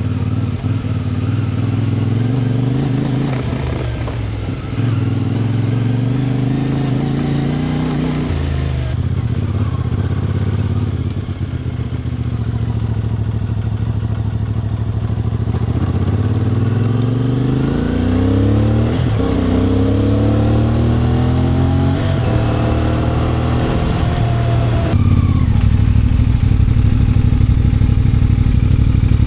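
A vehicle's engine running under way. Near the middle it speeds up in three successive climbs in pitch, each broken off by a short drop, as it accelerates through the gears.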